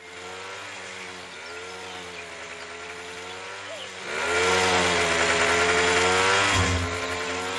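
Chainsaw running steadily. From about four seconds in it gets louder as it cuts into a tree trunk, its pitch wavering under the load, then eases back a little near the end.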